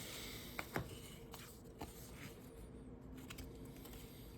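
Trading cards being handled and slid through the hands: a few faint clicks and light rustling in the first couple of seconds, then quiet handling.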